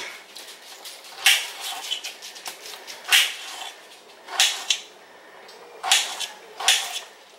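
A kitchen knife slicing through a tomato and knocking on a glass cutting board: about five sharp clicks at irregular intervals, each stroke of the blade striking the board.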